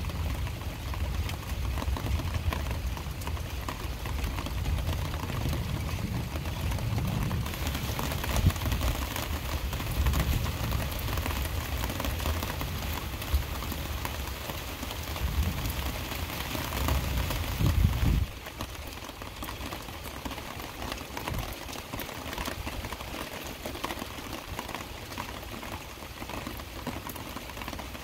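Heavy rain falling steadily, a dense hiss of drops. A low rumble underneath cuts off suddenly about two-thirds of the way through.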